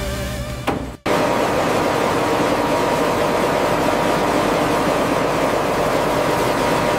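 Electronic music that cuts off suddenly about a second in, followed by the steady, even noise of running factory machinery with a faint hum in it.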